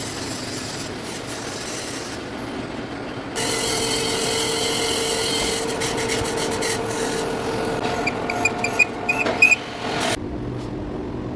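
Lathe turning metal: the cutting tool scrapes steadily against the spinning workpiece. About a third in it gets louder and takes on a steady whine. Near the end come a series of short, sharp squeaks, then the sound cuts off suddenly and leaves a lower machine hum.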